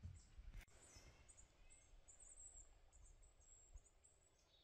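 Near silence in a forest: faint, very high-pitched bird chirps come and go over a low hush, with a single soft click about half a second in.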